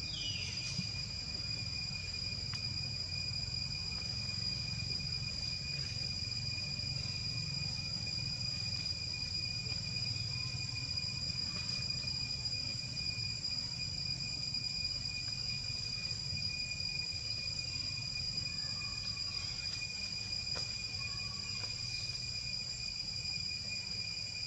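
Steady high-pitched insect chorus, an unbroken shrill drone, over a constant low rumble.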